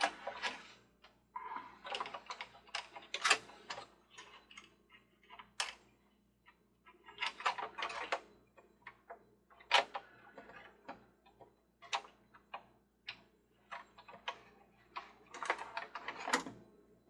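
Irregular clicks and knocks of hard metal and plastic parts being handled: the metal arms of a Mr. Christmas Ferris wheel being fitted into the holes of its plastic base.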